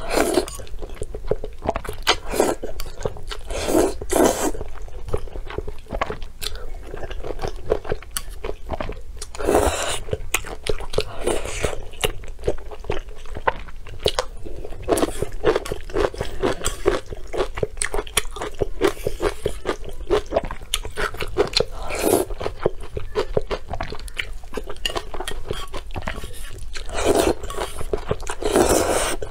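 Close-miked eating of spicy soupy instant noodles: wet slurps as the noodles are sucked up, with chewing and smacking mouth clicks between. A longer slurp comes near the end.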